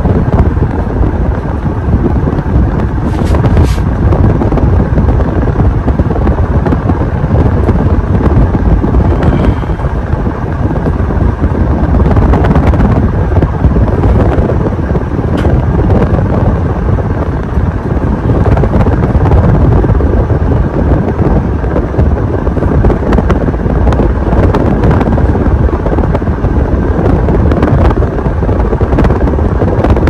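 Hampton Bay Cameron II Plus ceiling fan with a 188mm spinner motor running at speed, heard from close under the motor: a loud, steady rush of air from the spinning blades buffeting the microphone, with a faint motor hum.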